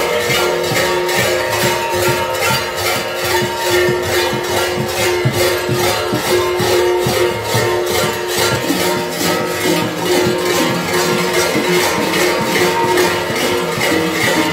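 Many large metal kukeri bells (hlopki) worn on costume belts, clanging together in an even rhythm of about three strikes a second, their ringing tones overlapping into a continuous din.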